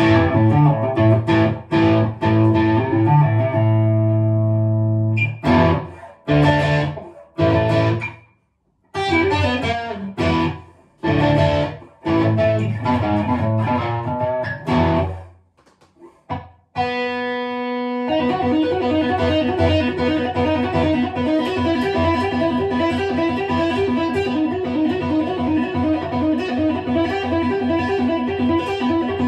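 1989 Hohner Arbor Series single-cut electric guitar with EMG pickups, played through a high-gain distorted amp setting. Ringing power chords are cut off by sudden stops with short breaks between them. After a brief silence and one held chord about two-thirds in, a continuous fast riff follows.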